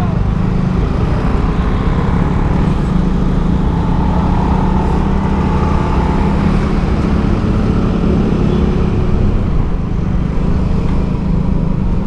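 Motorcycle engine running steadily while riding, a constant low hum, with road and wind noise and surrounding street traffic.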